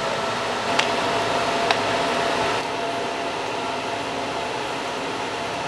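Steady hum and hiss of a fiber laser welding station, with two sharp snaps about a second apart from single laser pulses striking the workpiece. The upper part of the hiss drops away about two and a half seconds in.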